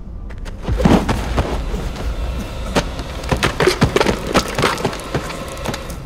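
Mine tunnel cave-in: a low rumble with a rapid run of crashes and knocks of falling rock, starting about a second in and easing off near the end.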